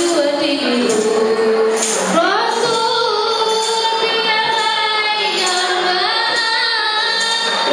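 A group of women singing qasidah together, holding long notes with gliding rises between them, accompanied by rebana frame drums whose beats stand out mainly in the first two seconds.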